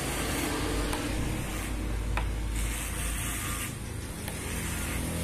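Corded electric hair clippers buzzing as they cut short hair on top of the head. The cutting noise eases briefly twice as the blade lifts off the hair.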